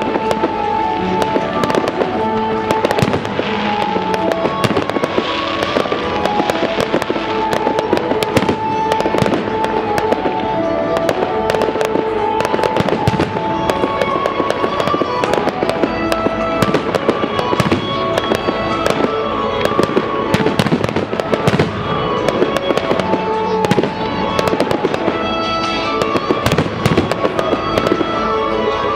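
Fireworks display: shells and comets going off in quick succession, many sharp bangs and crackles throughout, over a music soundtrack of held melodic notes.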